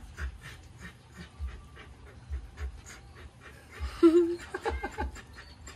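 A dog panting in quick, even breaths, with a brief louder vocal sound about four seconds in.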